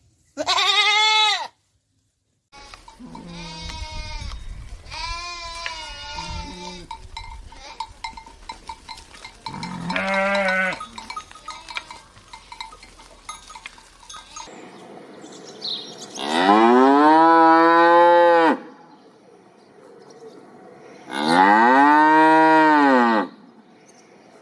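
Cattle mooing: a few shorter calls with cowbells ringing, then two long, loud moos in the second half.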